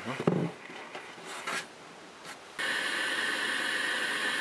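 Light clicks and rubbing as a blue AL-KO Octagon shock absorber and its bolt are handled against the metal holder on the axle swing arm. About two and a half seconds in, a louder steady hiss with a faint tone in it starts and runs until it cuts off sharply.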